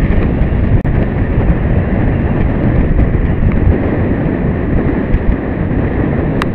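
Steady wind noise buffeting the microphone of a boat-mounted camera as a fishing boat runs across open sea, with the boat's engine and water noise underneath. Two sharp clicks near the end.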